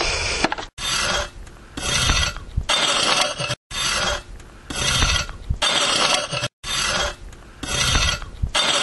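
Rhythmic scraping strokes, about one a second, each a short rasp with a brief pause between.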